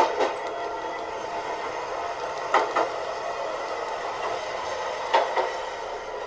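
N gauge model of a KiHa 30 two-car diesel railcar running on track: a steady running whir, with sharp clicks in pairs about every two and a half seconds.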